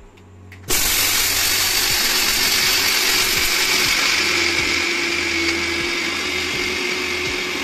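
Electric mixer grinder switching on about a second in and running steadily at high speed, with a high whine over its motor hum, grinding dry dog-food kibble to powder.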